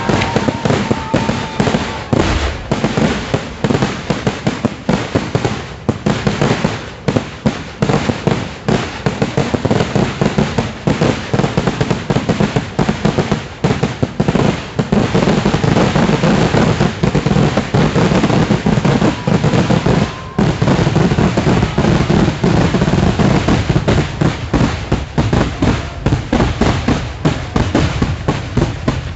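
Fireworks going off in a continuous rapid barrage: loud firecracker bangs, several a second with no real break.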